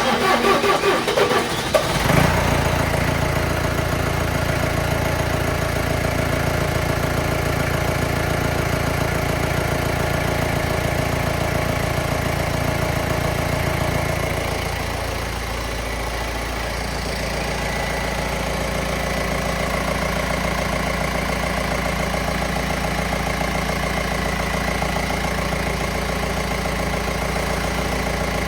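John Deere 6420 tractor's diesel engine being cranked by the starter and catching about two seconds in, after its fuel system was primed and injectors bled to cure a no-start. It then runs steadily, its note shifting about halfway through as it settles into a steady idle.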